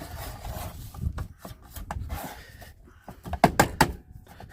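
Parts of a car radio cassette unit being handled and fitted together: rubbing and scraping, then a few sharp clicks about three seconds in as the casing goes back together.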